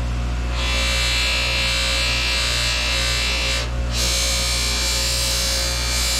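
Electric buffing wheel running steadily. A reel part is held lightly against it with polishing compound, giving a hissing rub from about half a second in, lifted off briefly about three and a half seconds in.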